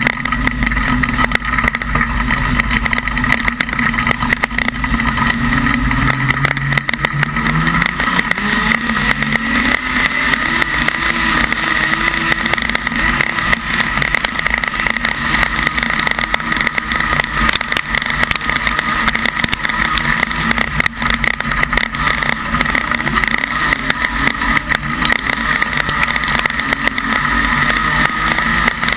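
Modified production speedway car's engine heard from inside the cockpit, its pitch climbing about six to nine seconds in as the car accelerates, then held at high revs, with rattling over it.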